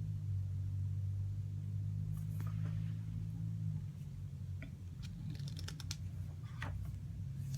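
Paper pages of a CD booklet being turned and handled: scattered soft rustles and clicks, with a quick run of clicks about five seconds in, over a steady low hum.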